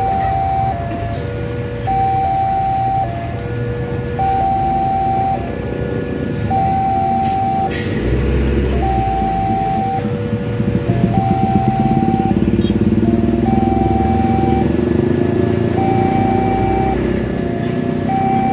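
Level-crossing warning alarm sounding from the loudspeaker on the crossing signal: a falling run of electronic chime notes repeating about every two seconds, warning that a train is approaching. Truck and motorcycle engines run underneath, growing louder about halfway through.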